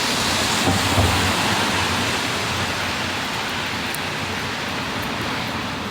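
Heavy rain falling, a steady hiss, with a brief low rumble about a second in.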